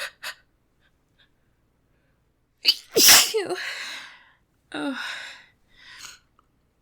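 A woman's single loud sneeze about three seconds in, with a sharp catching breath just before it. Softer breaths follow.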